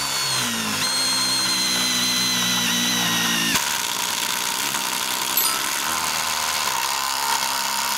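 Cordless impact driver running under load as a step drill bit cuts through thick-walled square steel tube. It makes a steady machine whine whose pitch shifts twice, about a second in and again around three and a half seconds in.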